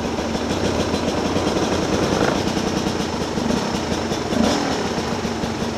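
Off-road dirt bike engines running at low revs as the bikes pick their way down a rocky trail, a steady engine drone with no let-up.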